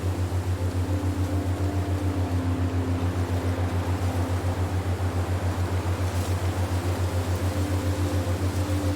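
Low, rapidly pulsing electronic drone with faint held higher notes over a soft hiss: a steady ambient meditation tone.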